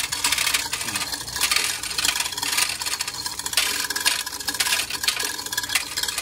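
Steel chain of a chain hoist rattling and clinking in quick, irregular runs as it is pulled hand over hand to lift an engine out of a car.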